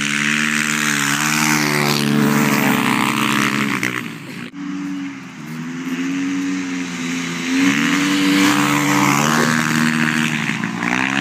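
Dirt bike engines revving, the pitch rising and falling again and again as the motocross bikes accelerate and back off across the snow. The sound breaks off sharply for a moment about four and a half seconds in, then the revving carries on.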